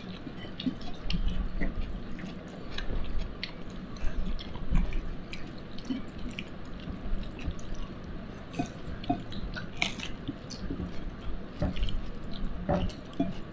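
A person chewing a mouthful of rice and chicken eaten by hand, with small wet mouth clicks and smacks, and fingers working the food on the plate. The clicks come irregularly, the sharpest about ten seconds in.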